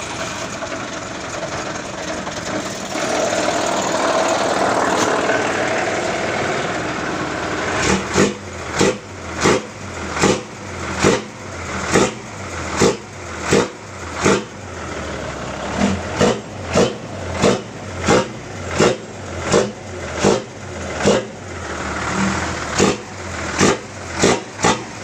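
Fuso dump truck's diesel engine heard through a split, modified racing exhaust. It runs with a swelling rev over the first few seconds, then the throttle is blipped over and over, giving a sharp exhaust bark about every 0.8 seconds for the rest of the time.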